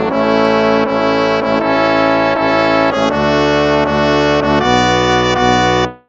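Instrumental hymn played in brass, slow held chords changing about every second and a half, with a short break right at the end.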